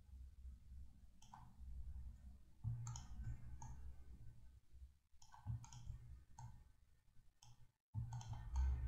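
Faint, irregular computer mouse clicks, a dozen or so, as patches are selected and dragged, over a low background hum.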